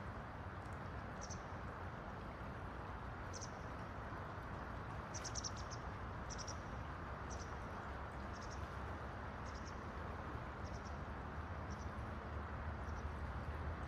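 Shallow river running over a pebble bed: a steady rush of water. Short high chirps repeat over it about once a second.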